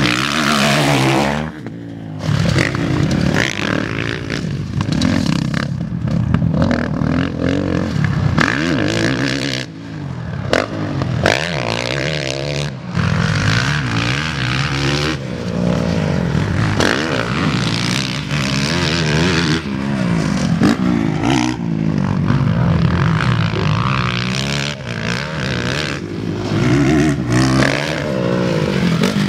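Motocross bike engine ridden hard, revving up and down over and over as the throttle is opened and closed, with short drops in loudness when it is shut off.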